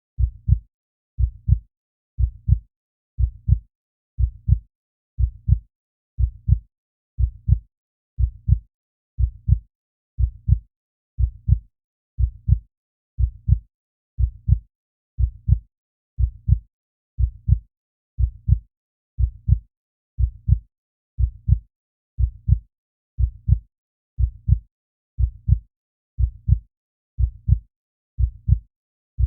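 Heartbeat, slow and steady: low, paired lub-dub thumps at about one beat a second.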